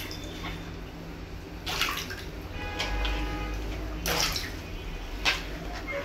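Water balloons being squeezed and popped by hand in a plastic basin of water: water sloshing, with three sudden splashy bursts about two, four and five seconds in.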